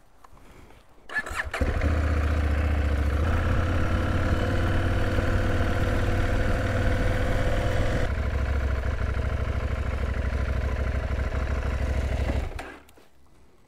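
KTM 790 Adventure S motorcycle's parallel-twin engine starting up about a second and a half in, then running steadily while the bike is ridden a short way, and switched off about a second before the end.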